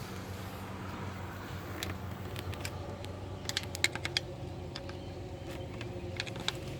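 Sharp clicks and clinks from a hand tool working on the camshaft actuator's 10 mm bolt, with a quick run of clicks about three and a half seconds in, over a low steady hum.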